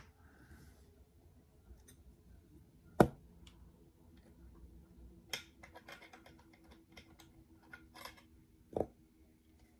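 Torx action screws being undone from a CZ 455 rifle's stock, with metal-and-plastic handling noise: scattered faint clicks and ticks, a sharp click about three seconds in and others near five and a half and nine seconds.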